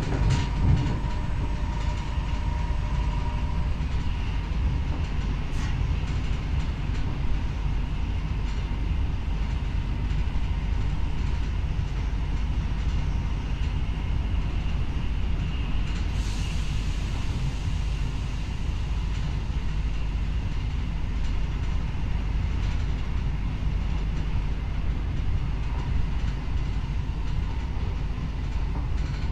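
SNCF Z 20500 double-deck electric multiple unit running along the line: a steady rumble of wheels on track, with a few faint clicks.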